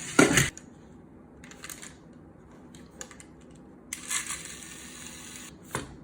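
Clicks and clatter of small hard objects, loudest in a quick cluster at the start, with scattered lighter clicks and a stretch of hiss later on.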